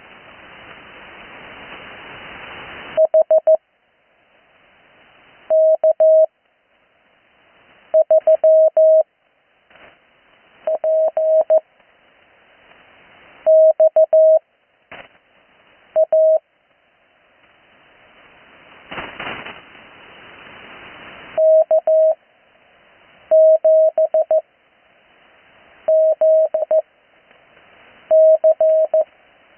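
Morse code (CW) tone heard on an 80 m amateur radio receiver: short, fast clusters of dots and dashes with long pauses between them, Farnsworth-style spacing for learners. Receiver hiss swells in each pause, and a brief burst of static comes about two-thirds of the way through.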